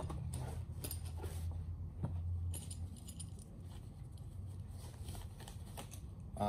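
Handling noise: small metal parts clinking and soft wrapping rustling as a rifle-scope rail mounting bracket is lifted from a padded case and unwrapped. The light clicks and rustles come in a cluster over the first couple of seconds, then turn softer.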